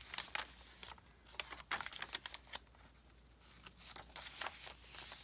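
Pages of a handmade paper junk journal being turned by hand: a scatter of short paper rustles and light taps.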